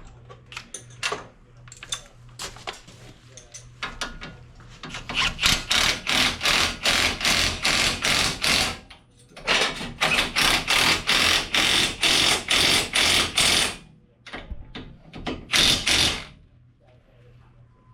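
Impact wrench hammering on suspension bolts in two long bursts and a short one near the end, a fast, even, loud clatter of blows.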